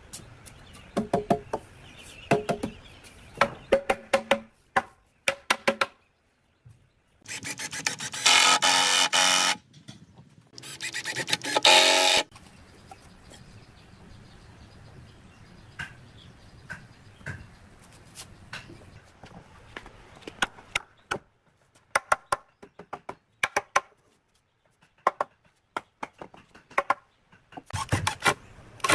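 Woodworking sounds: scattered wooden knocks and clatter, two loud bursts of a power tool running about two seconds each around the middle, and near the end a cordless drill starting to bore into a wooden bench board.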